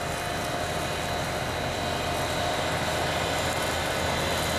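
John Deere 9530T tractor pulling a wide tined planter through stubble: a steady engine drone with a thin high whine, slowly growing louder as the rig comes closer.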